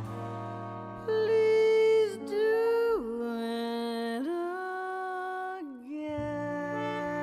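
A woman sings a slow song over instrumental accompaniment, holding long notes. Her voice swoops down about three seconds in and climbs back about a second later.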